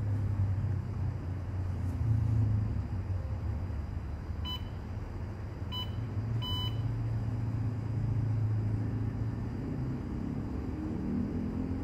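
Three electronic key beeps from a hybrid solar inverter's control panel as its buttons are pressed, two short and a slightly longer third, about halfway through. They sound over a steady low hum.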